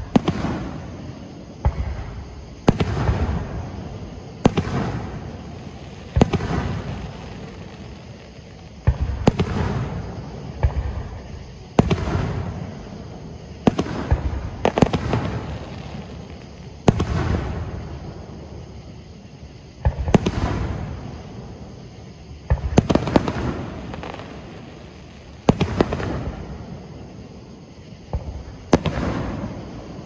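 Aerial fireworks shells bursting one after another, a sharp bang every one to three seconds, each followed by a fading rumble of echo; some come as quick double or triple cracks.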